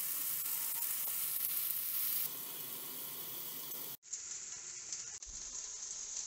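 Kosher-salted salmon fillets frying in avocado oil in an electric skillet, sizzling steadily. The sizzle cuts out briefly about four seconds in, then carries on a little quieter.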